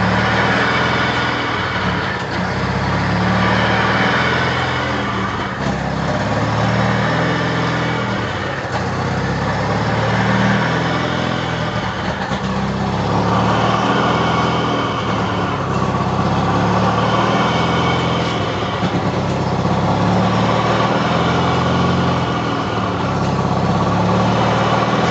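1993 Mazda RX-7's twin-turbo 13B rotary engine running steadily at low speed, with a high turbo whine that swells and fades every few seconds.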